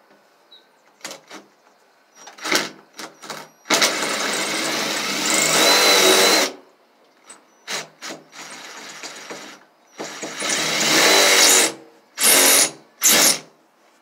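Ryobi cordless drill driving a self-tapping screw into a door hinge, run in trigger bursts: several short pulses, two long runs of a couple of seconds each, and two short bursts near the end.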